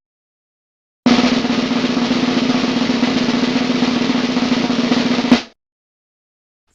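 Snare drum roll, rapid even strokes held for about four seconds and closed with a single sharp accent hit.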